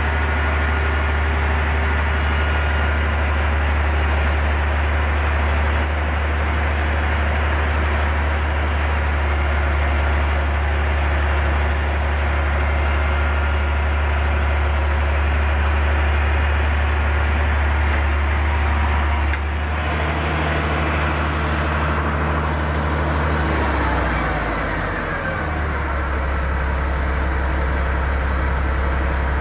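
Heavy diesel engine running steadily. About two-thirds of the way through the sound changes abruptly, and shortly after, the engine note drops lower and settles.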